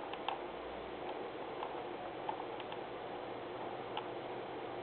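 A few faint, scattered clicks from a computer mouse as a page is scrolled, over a steady background hiss and hum.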